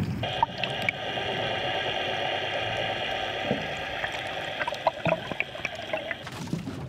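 Water gurgling and sloshing over a steady hum of several fixed tones, with a few small clicks; the sound starts and stops abruptly.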